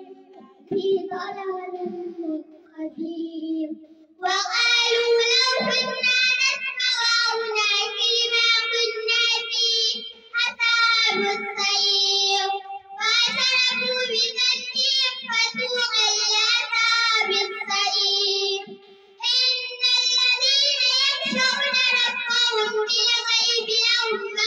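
A young girl's voice reciting the Qur'an in a melodic, drawn-out chant close to a handheld microphone, long held phrases separated by short pauses. It starts softly and grows loud a few seconds in.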